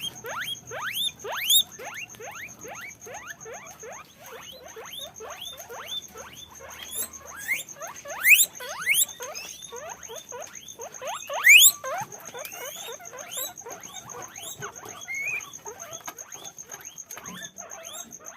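Guinea pigs squeaking: a rapid stream of short, rising squeaks, several a second, with a few louder squeals about 8 and 11 seconds in.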